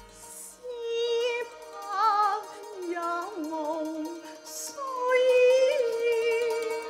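Female Cantonese opera singer singing a slow, drawn-out line with a wide, wavering vibrato, over instrumental accompaniment holding long steady notes.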